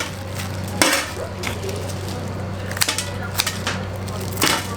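Kitchen work sounds: a few short scrapes and knocks of food and utensils over a steady low machine hum.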